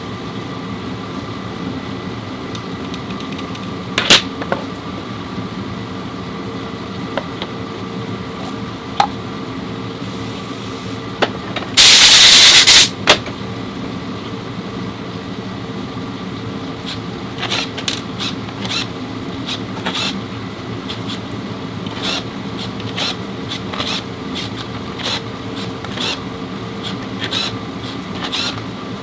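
Workshop sounds over a steady machine hum: a sharp click, then a loud hiss about a second long, then a run of quick clicks and taps in the second half.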